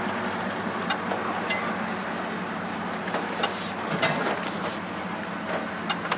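1971 Ford pickup truck running, heard from inside the cab: a steady mix of engine and road noise with a few light knocks and a brief swell of hiss about halfway through.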